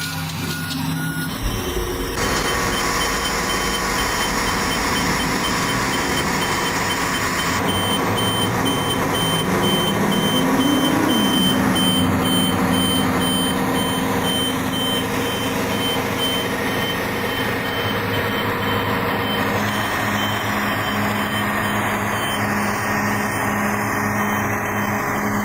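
A heavy vehicle's engine running under load with a reversing alarm beeping over it. The engine revs up briefly about ten seconds in.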